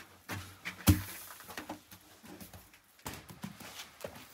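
Scattered knocks, soft slaps and handling noises of a baker setting flatbread dough onto the clay wall of a large tandoor, with one sharp knock about a second in.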